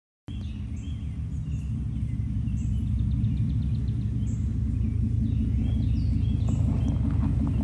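A vehicle engine idling with a steady low rumble, starting abruptly a moment in, with birds chirping faintly over it.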